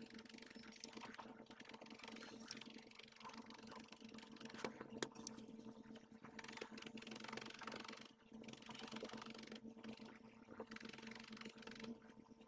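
Faint, scratchy pokes of a double 40-gauge felting needle stabbing wool into a small felted heart, over a steady low hum.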